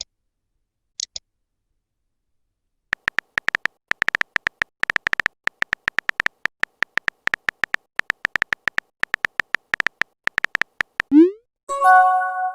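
Phone-chat sound effects: a long run of short typing clicks at an uneven pace, then near the end a quick rising swoop and a chime of several tones, the sounds of a message being sent and received.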